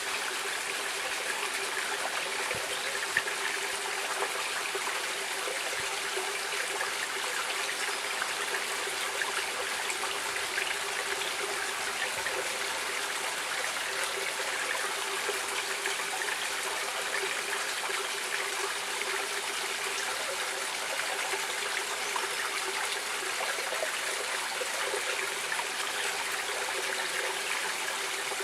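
A stream of flowing water running steadily and evenly.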